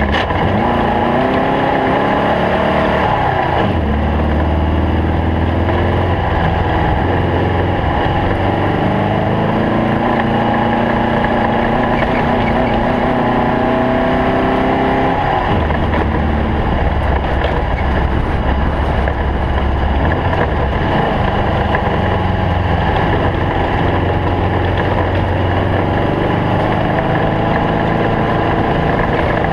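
Air-cooled flat-four engine of a stock VW Beetle desert race car running hard. Its pitch climbs for long stretches and drops sharply about three seconds in and again about halfway through.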